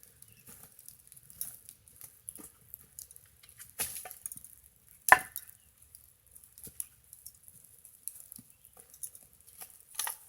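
Scattered light clicks and knocks of things being handled, with one sharp clink that rings briefly about five seconds in.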